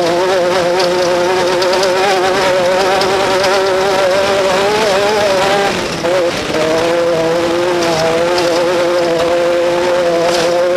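Off-road race vehicle's engine running hard at high, fairly steady revs, with a buzzing, wavering pitch; about six seconds in the revs dip briefly, then pick back up and hold.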